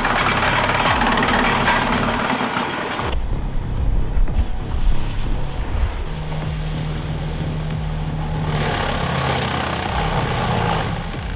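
Heavy machinery running. A harsh, noisy stretch cuts off abruptly about three seconds in and gives way to a lower, steady engine hum.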